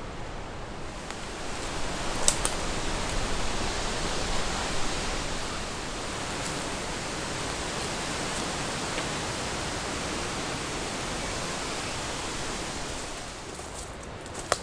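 A gust of wind rushing through the leafy woodland canopy, swelling about two seconds in and easing off near the end, with a sharp click about two seconds in.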